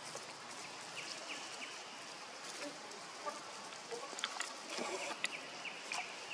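Outdoor forest ambience: a steady hiss with scattered sharp clicks and a few brief high chirps, about a second in and again between four and six seconds in.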